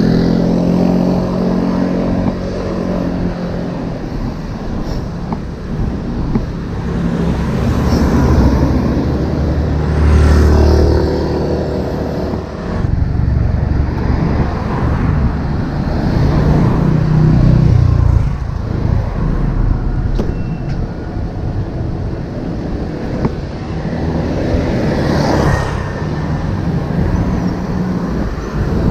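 Road traffic passing and wind noise on the microphone while cycling. A vehicle engine hums with a steady pitch over the first few seconds.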